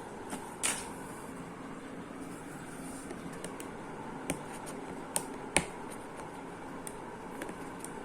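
Handling of an unboxed gaming keyboard and its packaging: a brief rustle, then a few scattered sharp clicks and taps, loudest near the middle.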